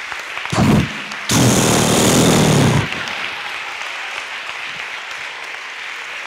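A loud, harsh buzzing vocal noise made into a microphone: a short one, then a longer one of about a second and a half. It is followed by steady audience applause and laughter.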